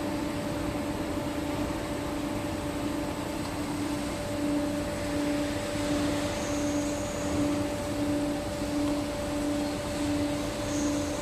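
Steady mechanical hum of a hydraulic power unit driving a hydraulic cylinder under test, over a hiss. About four seconds in, the hum starts pulsing on and off about one and a half times a second.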